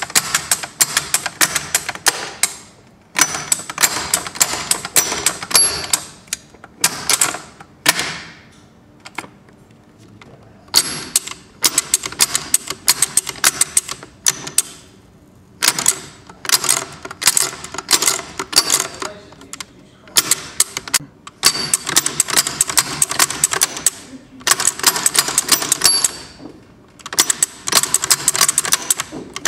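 Rapid metallic clicking and ratcheting from a Quaife QKE9E sequential gearbox's selector mechanism as it is worked through the gears with a test lever. The clicking comes in bursts of a couple of seconds, separated by short pauses.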